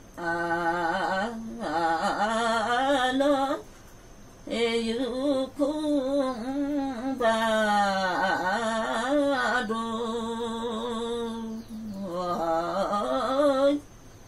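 A woman singing a traditional Limbu Tam:awke song unaccompanied, in long phrases whose pitch wavers and bends in ornaments. The phrases break off briefly about four seconds in and again near the end.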